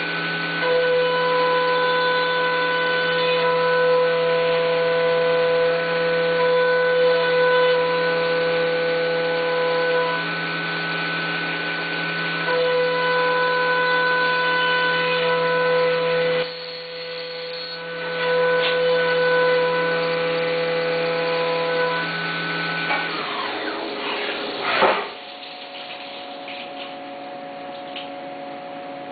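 CNC vertical milling machine cutting aluminum with an end mill: a steady whine of several held tones that briefly drops out about two-thirds of the way through. Near the end the cut finishes and the spindle spins down in a falling whine, leaving a quieter, lower steady machine hum.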